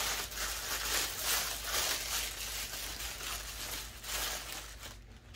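Box and packaging rustling as it is opened and handled by hand, in irregular bursts that die down near the end.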